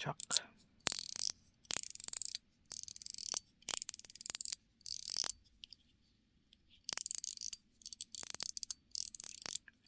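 Lautie Choc metal fidget being worked in the hand, giving short bursts of crisp, rapid clicks about once a second, with a pause of over a second midway.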